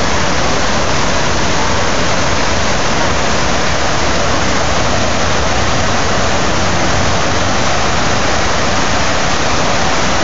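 Man-made waterfall of a large reflecting pool: water falling in a continuous curtain down the pool's walls and splashing into the pool below, a loud, steady rushing.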